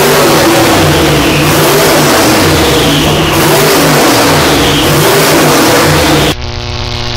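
Turbocharged V8 racing engine running on an engine dyno, revved up and down over and over. About six seconds in it cuts off suddenly, replaced by a quieter steady synthesized drone.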